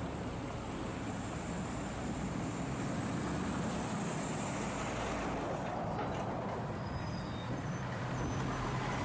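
Heavy lorry's diesel engine running with road noise, a steady low rumble that grows a little louder over the first two or three seconds and then holds.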